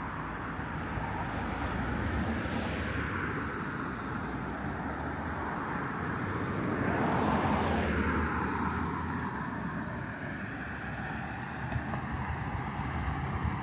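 Road traffic passing by: one vehicle swells past about two seconds in, then a louder one about seven seconds in, its sound dropping in pitch as it goes by.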